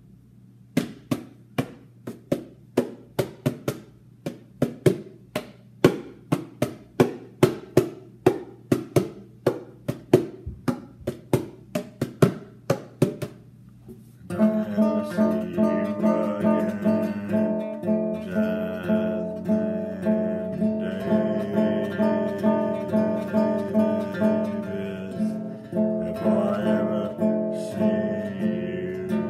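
Acoustic guitar: single chords struck about twice a second and left to ring, then, about fourteen seconds in, a steady continuous strum begins and runs on.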